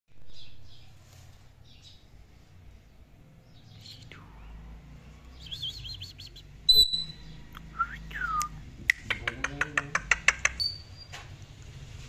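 Indian ringneck parakeet calling: scattered soft chirps, a falling whistle, a sudden loud sharp note about seven seconds in, a couple of curved whistles, then a quick run of sharp squawks, about six a second, for a second and a half.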